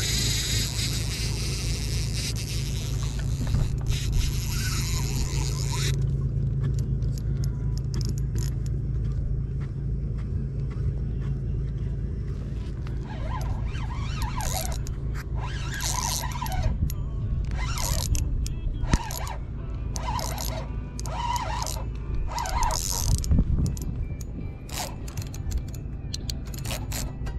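Background music, with scattered short clicks and scrapes.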